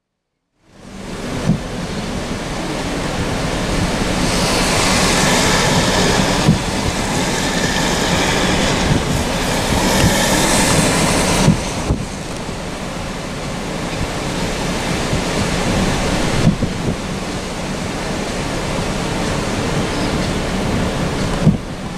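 Gale-force wind on the microphone and storm-tossed harbour water breaking over pontoons and moored boats, a steady rushing noise that starts about a second in, grows brighter through the middle and shifts in level abruptly a few times.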